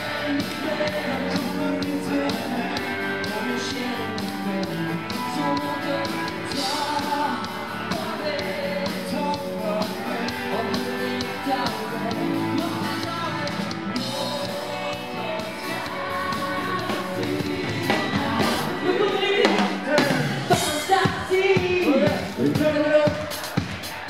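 Live band playing rock/funk with a singer: drums, electric guitar, bass and keyboards. About twenty seconds in, the drums come forward with sharp, separate hits and the music gets louder.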